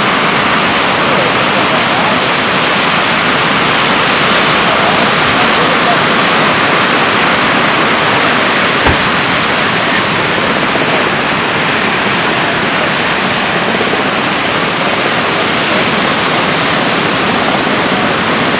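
Heavy ocean surf breaking on rocks and shore: a loud, steady rush of wave noise. A single brief click about nine seconds in.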